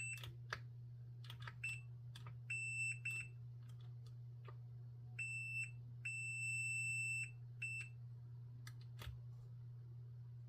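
Multimeter continuity beeper sounding in short, uneven beeps and one longer beep of about a second, with light clicks in between; each beep signals continuity between the probed connector pins. A steady low hum underlies it.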